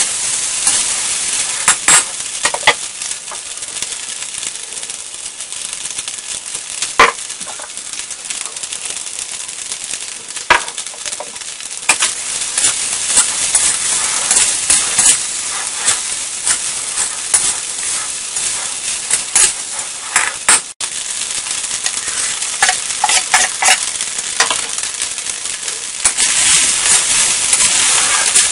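Fried rice sizzling in a steel wok as a metal wok spatula stirs and tosses it, with a steady frying hiss broken by frequent irregular scrapes and clanks of the spatula against the pan. The sizzle grows louder near the end.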